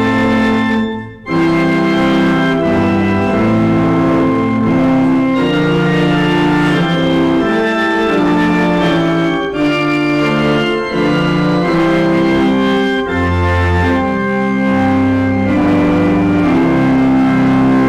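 Organ playing a hymn in slow, sustained chords, with a brief break between phrases about a second in.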